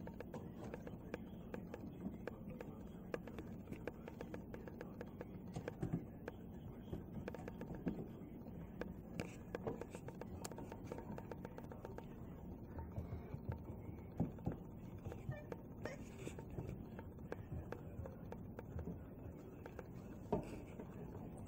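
Crows tapping and pecking on a skylight and roof: irregular light taps and clicks with a few louder knocks, over a faint steady hum.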